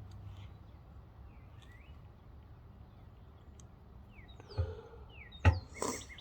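Quiet outdoor background with birds chirping now and then, short falling chirps. Near the end come two or three sharp clicks and knocks as the rifle's parts are handled.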